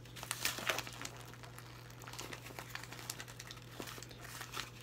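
Wrapping crinkling with irregular crackles as fingers pick at a taped, cracker-style wrapped package.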